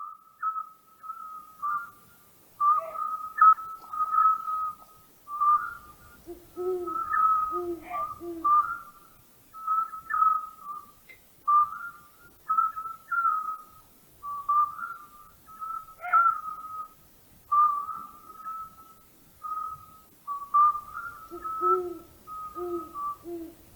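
Owl calls: short whistled notes repeat unevenly throughout, and twice, about a third of the way in and again near the end, a deeper hoot comes three times in a row.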